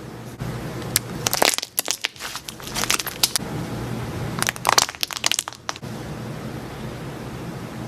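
Slime being squeezed and poked by hand, giving crackling, popping clicks in three bursts: about a second in, around three seconds, and around five seconds.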